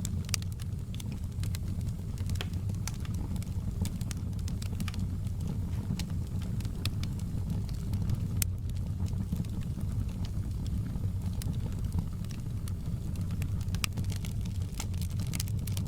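Wood fire crackling: a steady low rumble of burning with frequent sharp pops and snaps scattered at irregular intervals.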